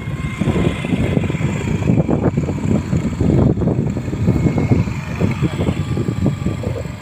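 A vehicle's engine running on the move, under a loud, uneven low rumble.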